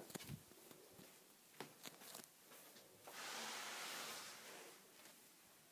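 Near silence with a few faint clicks, then a soft rustling hiss lasting about a second and a half in the middle.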